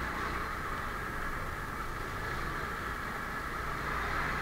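Motorcycle engine running steadily at low speed, a continuous even hum with no revving.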